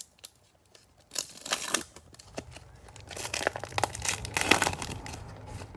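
Cellophane wrapper of a trading card pack being torn open and crinkled, a few seconds of dense plastic crackling and rustling.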